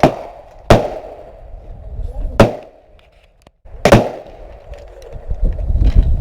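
Gunshots at a shooting range: three sharp shots about a second and a half apart, each followed by a short ringing echo.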